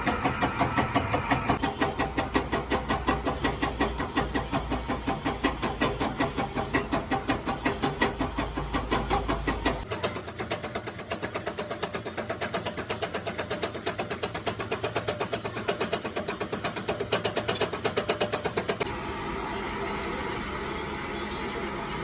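Workshop machinery working in a steady rhythm, about four strokes a second, that stops near the end, leaving a lower, steady machine noise.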